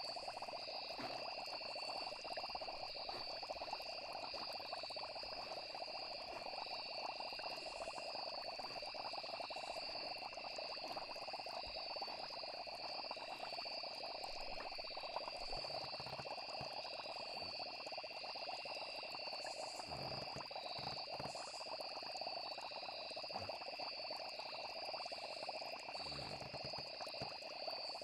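Night nature ambience: a steady chorus of trilling insects at two high pitches over a continuous chorus of frogs, with a few soft low sounds in the second half.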